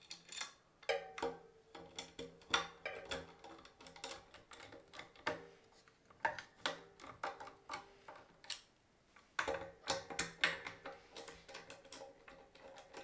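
Quiet background music with held notes that drop out for a few seconds midway, over a quick run of small clicks and ticks from a screwdriver and metal blade brackets being fastened.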